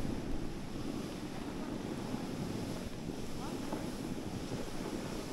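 Steady wind noise on the microphone, a low, even rushing sound.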